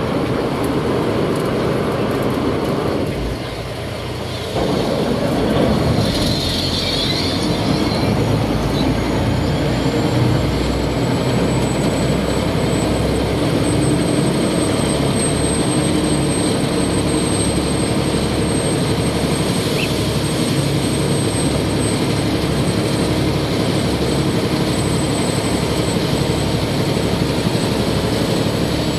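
Khlong Saen Saep canal express boat's diesel engine running hard under way, with rushing water and wind. The engine eases off about three seconds in and picks up again about a second and a half later, then runs on steadily with a faint high whine above it.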